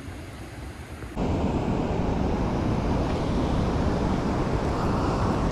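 Steady rushing of river water, mixed with wind buffeting the microphone, starting abruptly and much louder about a second in; before that a quieter river murmur.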